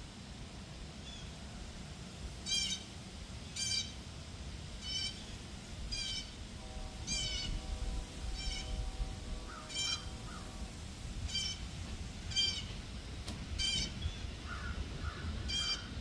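Blue jay giving harsh, scratchy jay calls over and over, about one a second. A faint steady drone sounds in the middle, and there are a few soft chirps.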